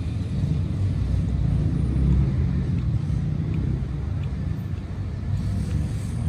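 Outdoor street ambience: a steady low rumble of traffic.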